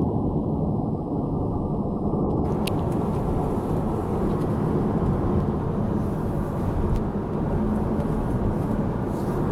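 Car driving at speed, heard from inside: a steady rumble of road and engine noise. About two and a half seconds in, a short click is followed by a light hiss of wind over the rumble.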